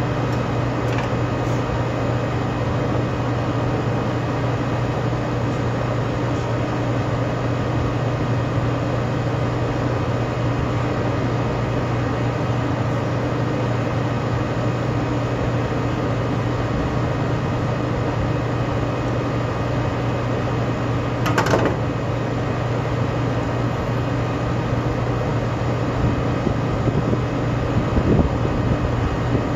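Steady low machinery hum from running rooftop equipment. About two-thirds of the way through there is a single sharp metal clank, and a few uneven knocks near the end as the exhaust fan's parts are handled.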